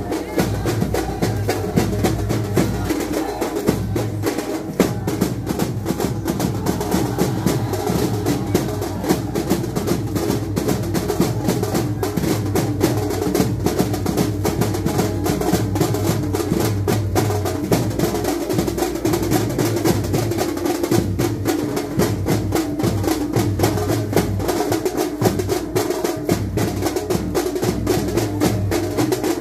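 Drums beaten in a fast, unbroken rhythm, many quick strokes a second, without a pause.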